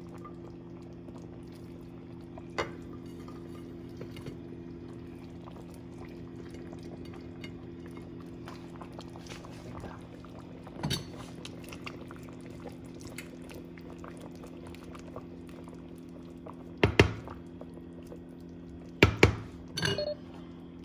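Chicken curry with vegetables simmering in a pan under a steady low hum, with a few sharp clinks of a utensil against the pan, the loudest about three-quarters of the way through and near the end.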